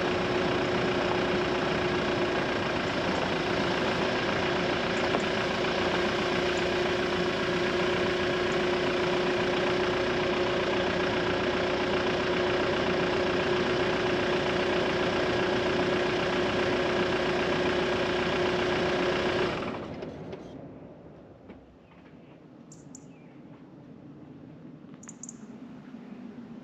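A car engine running, heard from inside the cabin as a steady noise with a constant hum. About twenty seconds in it cuts away to quiet, with a few faint high chirps.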